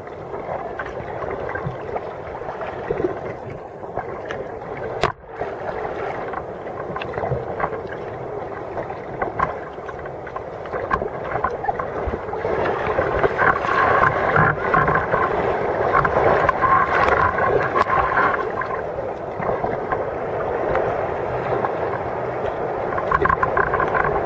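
Sea kayak moving through choppy sea water: water sloshing and splashing against the hull, with breaking surf growing louder in the second half. A single sharp knock about five seconds in.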